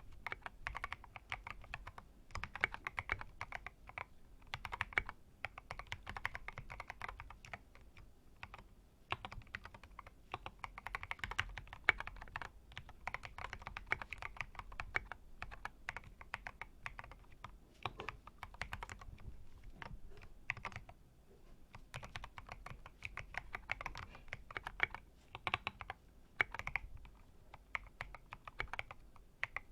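Typing on a BM65 V1 mechanical keyboard with a steel plate and lubed, filmed C3 Equalz Kiwi tactile switches: runs of rapid keystrokes broken by short pauses.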